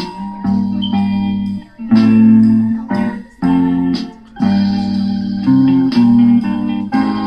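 Music with held, pitched chords and notes that change about every second, broken by several short pauses.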